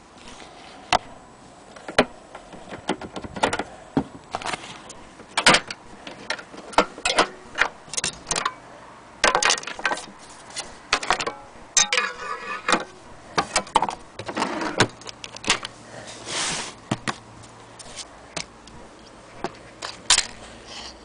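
Irregular clicks, knocks and light rattles from a wind-up gramophone's shellac record and parts being handled, with a short scraping stretch about halfway through.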